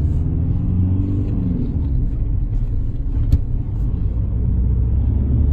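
Car driving, heard from inside the cabin: a steady low rumble of engine and road noise, with one sharp click a little past halfway.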